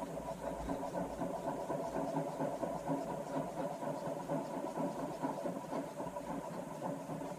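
Milling machine table power feed motor driving the table: a steady mechanical whir with several tones and a faint rhythmic texture that starts abruptly.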